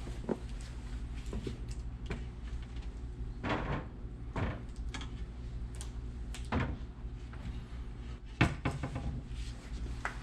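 Workbench handling noises from a shoe repair: scattered knocks and rustles, the loudest about eight and a half seconds in, over a steady low electrical hum.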